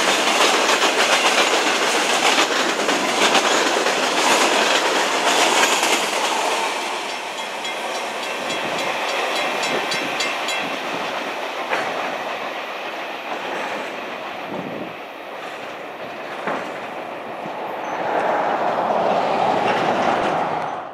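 Freight train cars rolling past at speed, their steel wheels clacking over the rail joints. The sound is loudest at first and grows fainter after about seven seconds.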